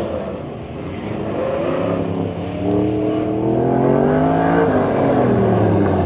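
1968 Chevrolet C10 stepside pickup's engine running hard under acceleration. Its pitch climbs for about three seconds, then drops sharply about four and a half seconds in as the driver lifts off.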